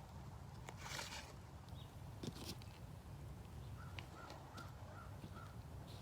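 A bird gives a quick run of five short calls about halfway through, over faint outdoor background with a few soft clicks and rustles.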